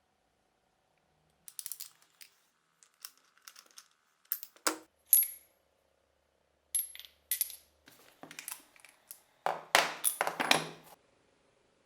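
Metal parts of an old powder-actuated nail gun clicking and clinking as they are handled, in an irregular series of sharp knocks with a brief metallic ring about five seconds in. A louder cluster of rattling knocks comes near the end.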